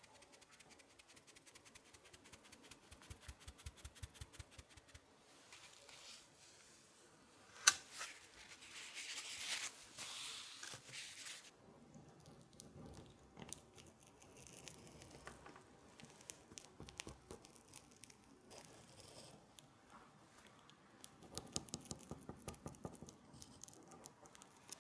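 Cocoa powder pattering finely through a tapped sieve, then a single sharp knock. After that, a thin knife blade scrapes softly around the inside edge of a ceramic dish of tiramisu, cutting through cream and cocoa.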